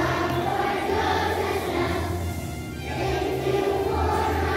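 A large group of children singing together along with a recorded song that has a steady bass line.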